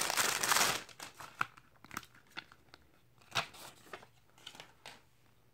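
Plastic packaging sleeve crinkling as a phone case is pulled out of it, for about the first second, then a few scattered light clicks and taps as the case is handled and opened.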